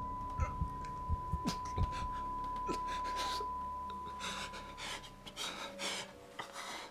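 A man breathing hard in heavy pants, over a steady high-pitched ringing tone that fades out about five seconds in, with a few small knocks.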